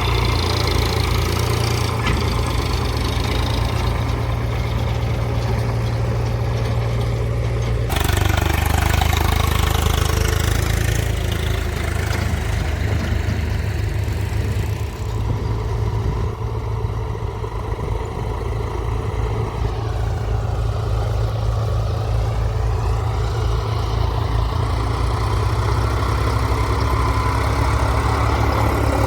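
Heavy diesel engine running steadily at low revs. Its sound shifts abruptly about eight seconds in, and its pitch rises and falls in the second half.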